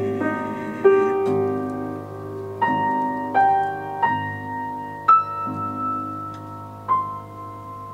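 Solo piano playing a slow, soft closing passage of an opera accompaniment: single notes and chords struck one after another, each left to ring out, growing quieter toward the end.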